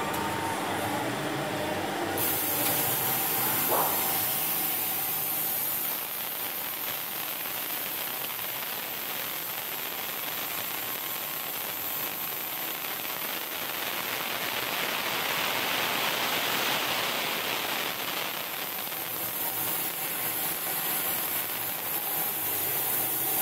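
Robot-mounted fiber laser cutting head cutting through a pressed steel motorcycle part: a steady rushing hiss of the cut and its gas jet, throwing sparks, with machine noise behind it.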